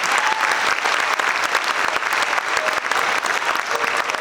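Audience clapping steadily throughout.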